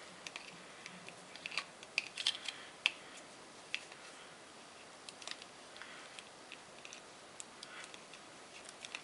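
Small clicks and scrapes of pliers and a screwdriver on the plastic terminal block of a four-gang socket outlet as wires are pushed in, thickest in the first three seconds, then scattered.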